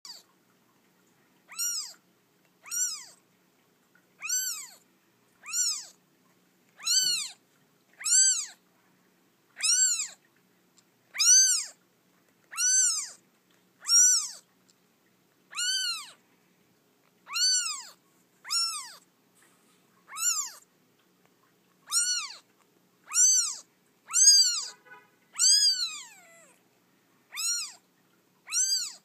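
Kitten only a few days old mewing over and over: about twenty thin, high-pitched cries, one every second or so, each rising and then falling in pitch.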